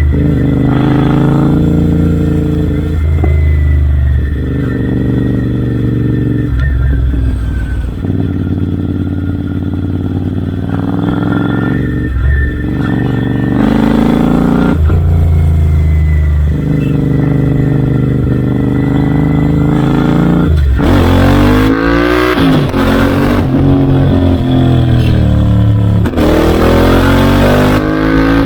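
Royal Enfield Interceptor 650's parallel-twin engine through Red Rooster Performance aftermarket exhausts, under way: the exhaust note steps up and down every few seconds as the throttle opens and closes, then rises in pitch twice under hard acceleration near the end, with a hiss of wind over it.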